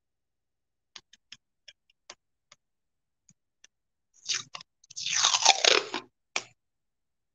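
Masking tape being pulled off its roll with a crackling rasp: a short pull, then a longer, louder one of about a second, after a few faint ticks of handling.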